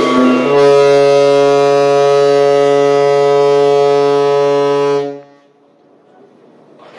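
Ship's horn sounding one long, steady blast that cuts off about five seconds in.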